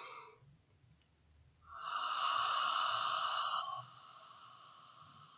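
A woman's breath through the open mouth in a diaphragm breathing exercise: a short breath at the start, then a long, louder breath about two seconds in that eases off near the four-second mark and trails away faintly.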